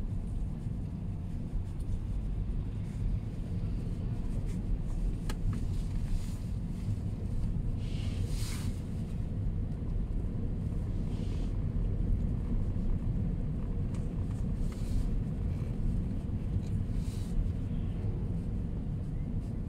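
Steady low rumble of a road vehicle driving, heard from inside its cabin, with a few brief hissing rushes, the loudest a little before the middle.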